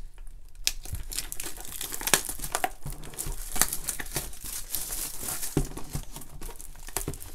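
Plastic shrink wrap being torn and peeled off a cardboard trading-card hobby box, crinkling in irregular bursts of small crackles that start a fraction of a second in.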